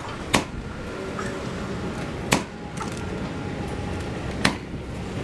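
Framing nail gun firing three nails into roof timber, one sharp shot about every two seconds.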